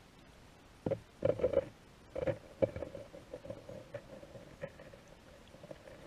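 Underwater drone's thruster motors whirring in short bursts: several brief whirs from about a second in, then a lighter pulsing hum at one pitch, and a louder burst at the very end.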